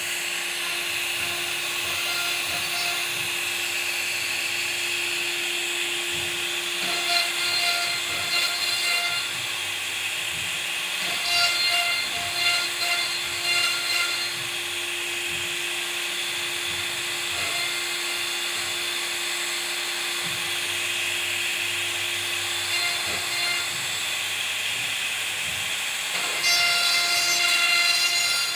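CNC router spindle running with a steady whine as its bit cuts grooves in a wood panel. The cutting grows louder and rougher in stretches about 7, 11 and 26 seconds in.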